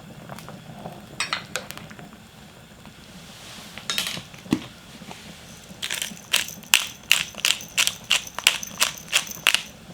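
Hard garlic cloves being crushed by hand with a run of about a dozen sharp, evenly spaced knocks, roughly three a second, in the second half, after a few scattered clicks and a dull thump.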